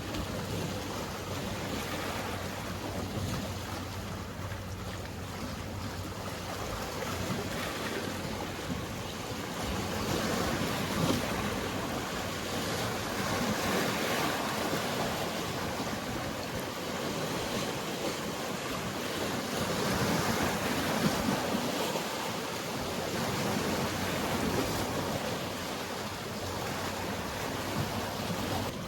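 Mediterranean sea waves washing in, a steady rushing that swells and eases slowly, with some wind on the microphone. A faint low steady hum runs under it through the first third.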